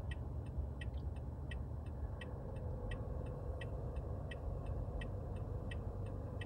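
Car turn-signal indicator clicking steadily in an alternating tick-tock, about three clicks a second, over the low rumble of the car driving, heard inside the cabin.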